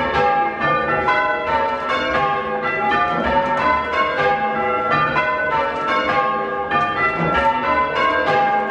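Ring of six church bells rung full-circle in changes, tenor about 8¾ cwt and tuned to G. The bells strike one after another in a steady, even rhythm, each note ringing on under the next.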